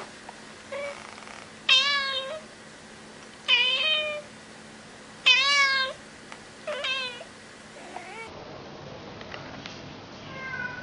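Kitten meowing repeatedly: about five high-pitched meows in the first seven seconds, three of them loud and drawn out, then only faint background sound.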